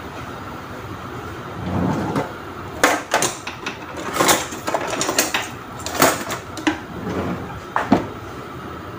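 Kitchen clatter: a run of irregular sharp clicks and knocks, starting about three seconds in and stopping near the end, over a steady background hiss.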